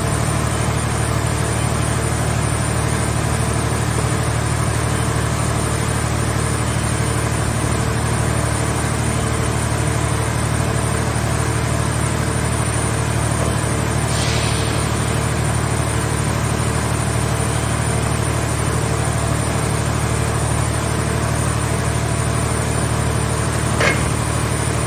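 Car-shell scrap baler machine running with a steady low hum. A brief hiss comes about fourteen seconds in, and a sharp click near the end.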